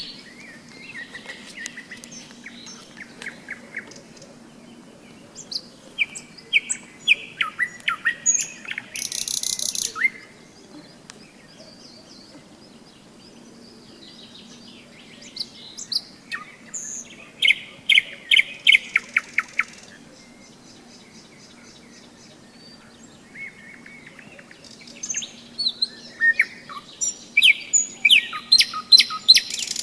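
Nightingale singing in three loud bouts about ten seconds apart, each a string of fast repeated notes, clicks and rattles, with quieter bird chirps between the bouts.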